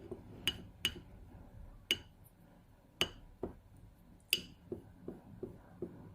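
Paintbrush tapping and scraping against a dish while mixing ink: about five sharp, ringing clinks, with softer taps in between in the second half.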